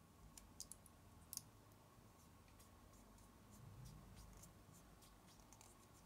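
Near silence with a few faint small clicks, several in the first second and a half and one more about four seconds in, from fingers pressing an adhesive insulating ring onto the positive end of a lithium-ion battery cell.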